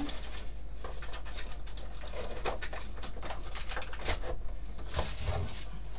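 Scattered light clicks, taps and rustles of small paper-crafting supplies being moved around on a work table while someone rummages for a packet of rhinestones.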